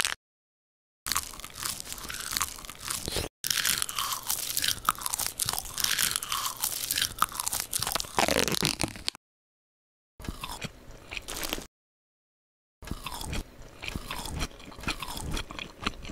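Edited-in mukbang eating sounds: crisp crunching bites and chewing in several separate passages, each cut off abruptly by moments of dead silence.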